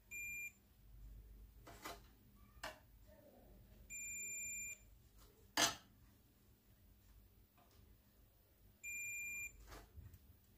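Digital multimeter on its continuity range beeping three times with a high steady tone, the first brief and the other two nearly a second long, as the probes are held across the amplifier's power transistors: the beep signals continuity, a short still present. A sharp click, the loudest sound, comes about halfway, with a few fainter clicks around it.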